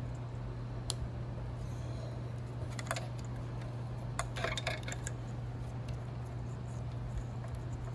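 Small sharp clicks and rattles of hands handling wires and fitting insulated crimp connectors, with a brief flurry of clicks about halfway through, over a steady low hum.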